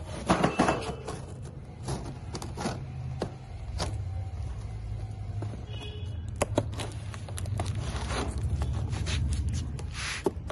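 Scissors cutting along the packing tape of a cardboard box: repeated scraping strokes and sharp clicks as the blades work through the tape and cardboard, over a low steady rumble.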